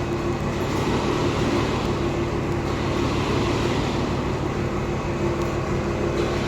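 Electric winch running steadily under load as it pulls a truck into position, a continuous hum over a low rumble.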